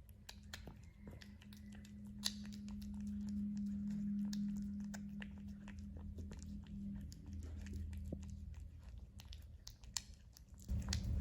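A cat eating wet tuna in gravy close to the microphone: many small irregular wet chewing clicks over a low steady hum. A louder sound comes in just before the end.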